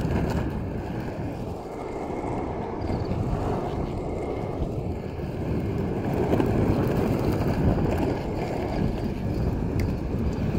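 Skateboard wheels rolling steadily over rough asphalt, a continuous low rumble, with wind buffeting the microphone.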